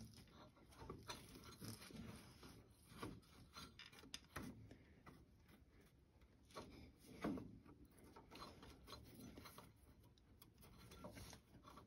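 Faint, scattered rubbing and small knocks as a rubber fan belt is worked by hand around the pulleys of a 1948 Ford 8N tractor, with the engine off.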